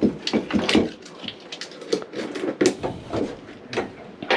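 Irregular clatter of sharp knocks and clinks, like tools and hard parts being handled and set down.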